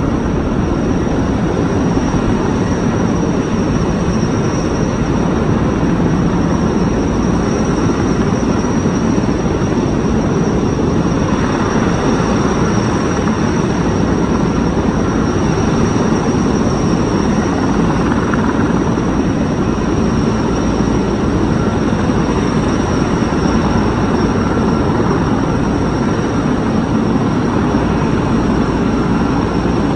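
Helicopter running steadily, a dense continuous rotor-and-engine drone with a thin high whine held above it.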